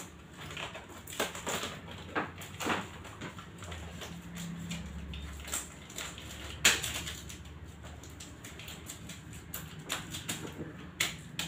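Paper rustling and crackling as a long paper banner strip is unrolled and pressed flat against a wall by hand, with scattered soft crackles and taps and one sharper tap about seven seconds in.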